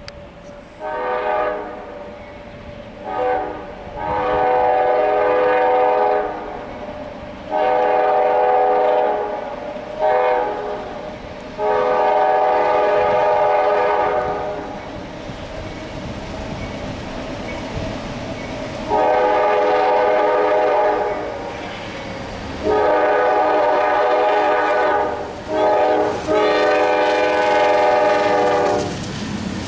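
Norfolk Southern locomotive air horn, several chime tones sounding together, blowing two short toots and then the long-long-short-long grade-crossing signal twice. The passing train rumbles between the blasts.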